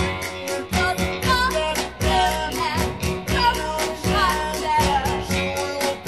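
Early-1960s R&B record playing: singing over a band with guitar and a steady beat.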